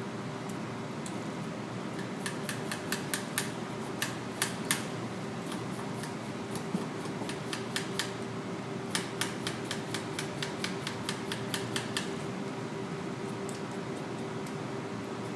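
Knife cutting a raw potato on a wooden cutting board: two runs of quick, sharp knocks as the blade goes through and meets the board. A steady hum of room ventilation runs underneath.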